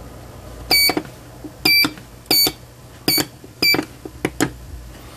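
Piezo buzzer on a DIY 8-channel digital responder (quiz-buzzer) kit beeping as its numbered push buttons are pressed: five short, high beeps at uneven intervals, then a couple of faint clicks.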